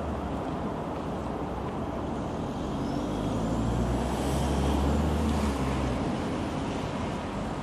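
Road traffic noise, with a passing vehicle's engine rumble swelling and fading between about three and six seconds in.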